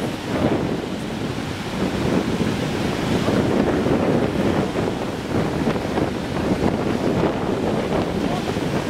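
Strong wind buffeting the microphone over the continuous wash of breaking waves, with the rush rising and falling in gusts.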